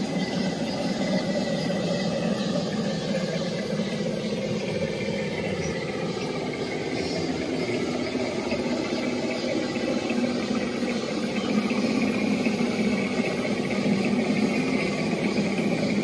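Radio-controlled scale crawler trucks driving through shallow creek water: a steady motor and drivetrain whine mixed with running and splashing water, a little louder in the second half.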